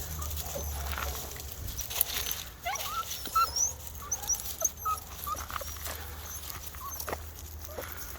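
Labradoodle puppies whining, a run of short high-pitched cries that rise and fall, most of them between about three and five seconds in, with a few light knocks.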